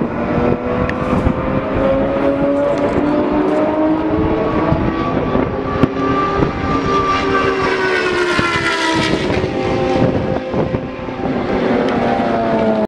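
Several race car engines running at once, their pitches rising and falling over one another, with a few sharp pops on top.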